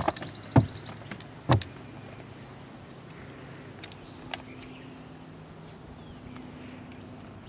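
Two sharp knocks in the first two seconds as fishing gear is handled in a boat, over a steady high-pitched insect drone. A faint low hum comes in later.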